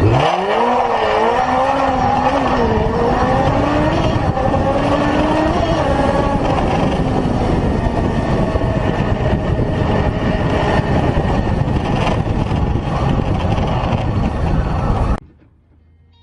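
Motorcycle engine revving hard as the bike pulls away, its pitch climbing steeply at first and then rising and dipping over the next few seconds. After that, steady wind rushing over the microphone at riding speed, which cuts off suddenly near the end.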